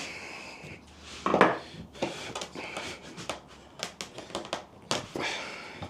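Adjustable spanner levering the bent jaw of a cast-iron Stanley 702 corner vise: scattered metal clinks, scrapes and creaks, with one louder event about a second and a half in.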